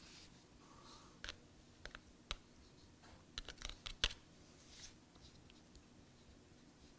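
Faint, irregular clicks and taps of a knife tip pricking vent holes in a raw pie-dough top crust on a foil pie pan.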